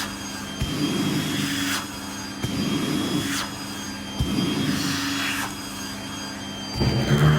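Vacuum cleaner running with a steady high whine, its nozzle drawn back and forth over dress fabric in strokes about every two seconds. Near the end the sound turns louder and deeper.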